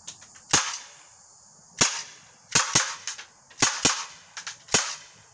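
Umarex SA10 CO2 blowback pellet pistol firing: about seven sharp shots at an uneven pace, a couple of them in quick pairs.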